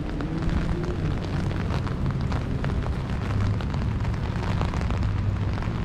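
Rain falling on an open umbrella held overhead: a dense patter of drops over a low, steady rumble.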